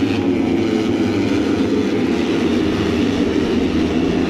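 Pack of Moto3 racing motorcycles, 250 cc single-cylinder four-strokes, running at race speed on the first lap, their engines blending into one steady, dense drone.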